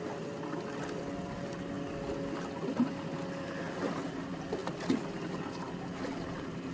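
A boat's twin engines running steadily at low speed in gear, a steady hum. Two short sharp clicks come about a third and about two-thirds of the way through.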